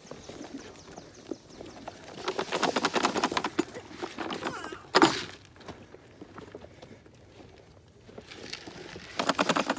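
Footsteps crunching over dry, gravelly ground, with a quick run of light rattling clicks in step. About five seconds in comes one short, loud cry that falls in pitch.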